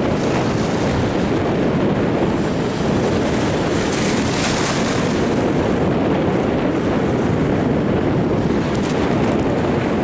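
Choppy sea surf washing and breaking at the shoreline, with wind rushing over the microphone. The hiss brightens briefly about four seconds in.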